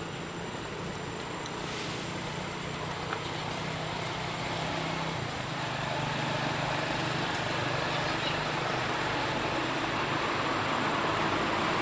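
A motor vehicle's engine hum and road noise growing steadily louder as it approaches.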